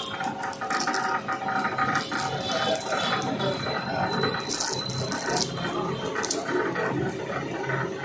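Heavy 35 sq mm electrical cable and loose stripped copper strands rattling and scraping as they are handled and pulled at a wire stripping machine: an irregular run of clicks and rustles over a faint steady hum.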